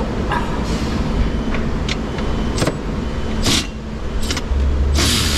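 Steady low workshop rumble with a few scattered sharp clicks and knocks from hand tools working on the steering column bolts under the stripped dashboard. A loud hiss over a heavier low rumble starts in the last second.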